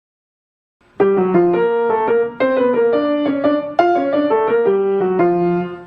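Piano music: a melody of quick, separate notes that starts suddenly after about a second of silence.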